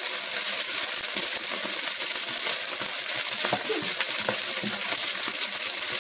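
Beef frying in oil in a hot skillet, a steady sizzle, with a few light clinks about three and a half to four and a half seconds in.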